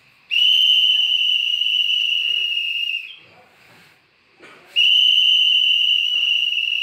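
A drill instructor's whistle blown in two long, steady, high blasts. The first lasts about two and a half seconds, and the second starts about a second and a half after the first ends and lasts about two seconds.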